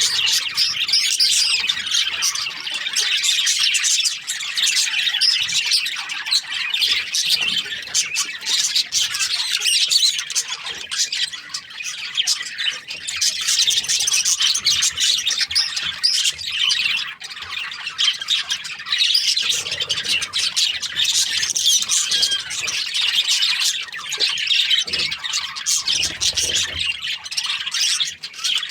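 Flock of budgerigars (parakeets) chirping and squawking nonstop, many calls overlapping into a steady chatter.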